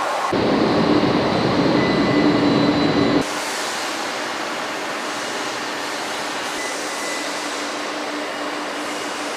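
Overhead crane in a factory hall running steadily as it carries a heavy forged shell, a continuous mechanical rumble with a steady hum. It is louder and deeper for the first three seconds, then drops abruptly to a thinner, quieter hum.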